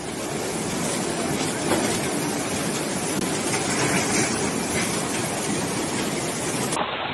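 Muddy floodwater rushing down a street in a fast torrent: a steady, loud rushing noise that turns duller near the end.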